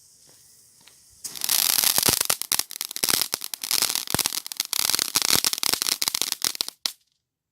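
Weco Kobold ground fountain firework burning: a loud spray hiss thick with fast crackling pops. It starts about a second in, runs for about six seconds and cuts off suddenly near the end as the fountain burns out.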